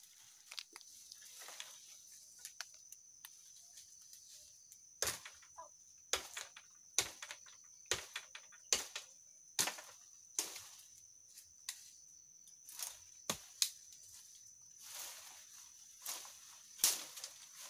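Woody plant stalks being cut and snapped in undergrowth: a run of sharp cracks, about one a second from roughly five seconds in, with rustling of leaves and stems between them.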